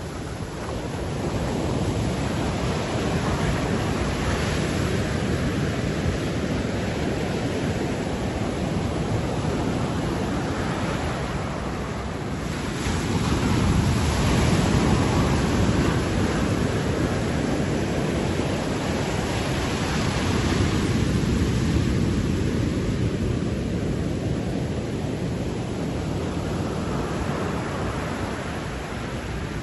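Ocean surf breaking and washing up on a sandy beach: a continuous rushing noise that swells as each wave breaks, several times over, the biggest about halfway through.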